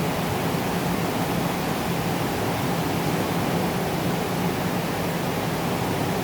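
Steady moderate rain falling, an even hiss with no breaks.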